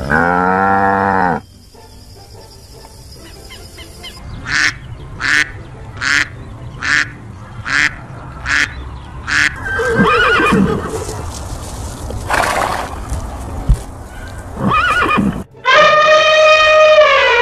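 Animal calls one after another. A cow moos at the start, then a run of about seven short calls comes evenly spaced. A horse whinnies about ten seconds in, and an elephant trumpets near the end.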